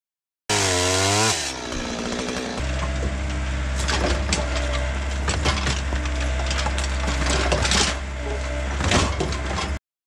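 A chainsaw winds down in falling pitch at the start. Then an excavator's diesel engine runs steadily while its bucket rips out a tree stump, with roots and wood cracking and snapping and dirt knocking.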